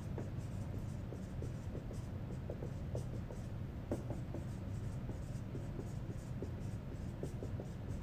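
Dry-erase marker writing on a whiteboard: a string of short strokes and squeaks as the letters are drawn, over a steady low hum.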